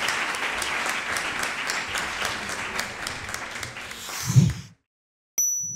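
Audience applauding, the clapping thinning out and stopping about two-thirds of the way in. Then a short low thump, a moment of silence, a sharp click with a thin high tone, and a second low thump near the end.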